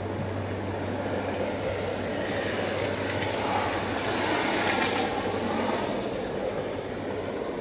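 Freight train's tank cars rolling past on the rails, a steady rumble with a rushing swell that peaks about four to five seconds in and then fades.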